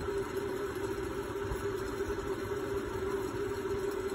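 A steady motor hum, even and unchanging in pitch.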